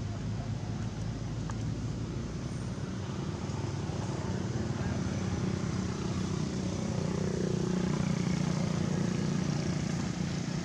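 A steady low engine rumble with a hiss over it, growing a little louder about seven seconds in.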